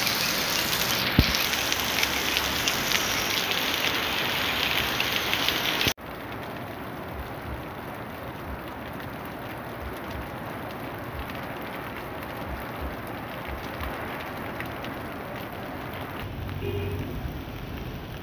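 Heavy rain pouring down onto a wet street and pavement, a dense steady hiss and patter. It drops abruptly to a quieter level about six seconds in. A single sharp thump comes about a second in.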